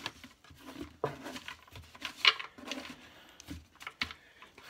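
Pokémon trading cards being handled and sorted by hand: a string of light taps, clicks and short rustles, with the sharpest tap about two seconds in.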